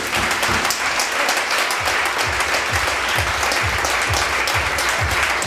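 Audience applauding, a dense patter of many hands. Low thuds come in about twice a second from about two seconds in.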